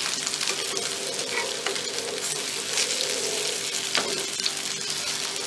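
Alu vadi (colocasia-leaf rolls) shallow-frying in hot oil in a nonstick pan on their second side, a steady sizzle full of fine crackles. A metal spatula gives a short knock against the pan about four seconds in.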